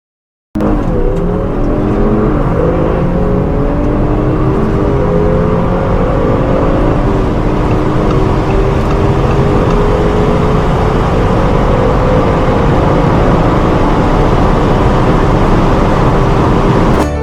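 Car engine under hard acceleration at high speed, its pitch climbing slowly, with upshifts about one second and about three seconds in. The sound starts abruptly and cuts off just before the end.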